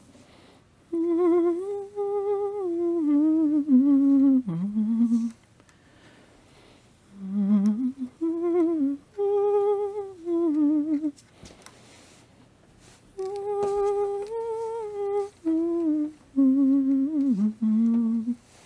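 A person humming a slow tune in three phrases, with vibrato on the held notes and short pauses between phrases.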